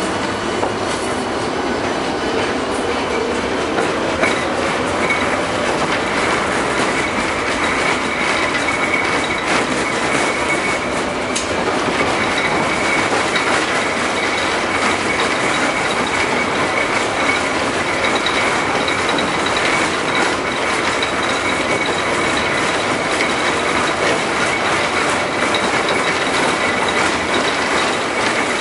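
LM-68M tram running along the track: a steady rolling rumble of wheels on rails with a faint high squeal, and a whine that rises in pitch over the first few seconds as the tram gathers speed.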